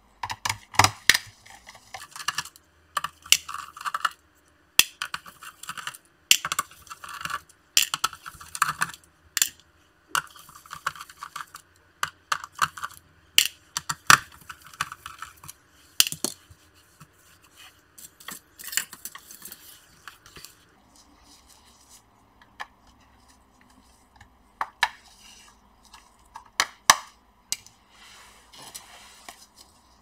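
Small screwdriver working the screws out of an Acer Aspire 3 laptop's plastic bottom cover: a busy run of clicks, scrapes and light taps. It goes quieter about two-thirds of the way in, leaving a few sharp clicks.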